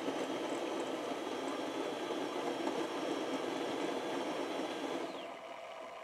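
Fulgor Milano built-in coffee machine frothing milk into the cup: a steady rushing noise from the frother that drops to a quieter machine sound about five seconds in, as the milk stops and espresso starts to drip.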